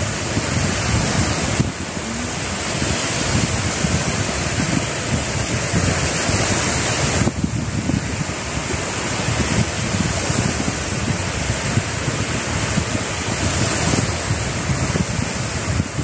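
Small sea waves washing steadily onto a pebble beach, with wind buffeting the microphone.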